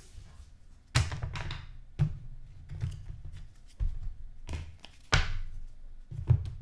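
Trading cards and a small cardboard card box handled on a tabletop: about six soft thunks and taps, a couple of them followed by a brief papery swish.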